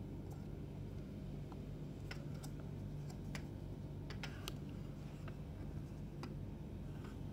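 Light, scattered clicks and taps of a small plastic PTZ security camera housing being handled and turned over in the hands, over a steady low hum.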